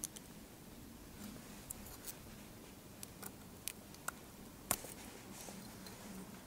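Faint, scattered small clicks and snips of hand work, a small cutting tool trimming the individual foil shields off the wire pairs of a shielded data cable, with the sharpest snip a little before five seconds in. A faint low hum runs underneath.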